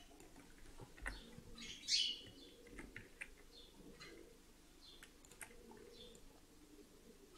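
A bird chirping in the background, loudest in one sharp falling chirp about two seconds in, with weaker chirps later. Faint clicks of a computer mouse and keyboard run under it.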